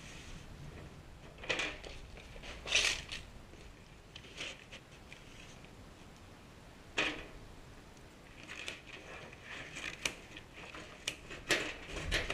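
Cardboard templates and a plastic square being handled and set down on a workbench: scattered light knocks and rustles, the sharpest about three and seven seconds in, with a run of smaller ones near the end.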